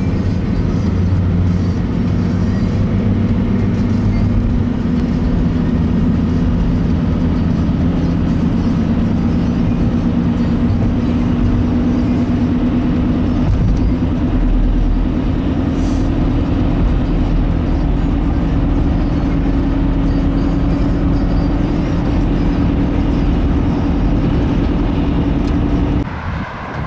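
A car driving at highway speed, heard from inside: a steady engine drone whose pitch drifts slowly, over constant tyre and road noise. It cuts off abruptly near the end.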